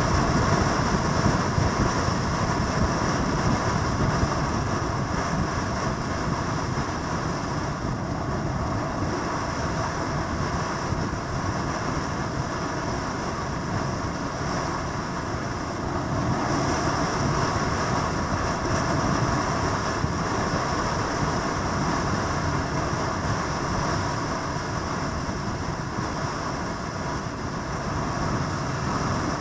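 Steady, dense rumble of motorcycle engines running, mixed with a constant hiss, without any distinct single pass-by.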